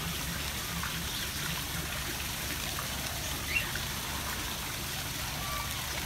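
Steady trickle of running water, with a few brief bird chirps; one short rising chirp about three and a half seconds in stands out.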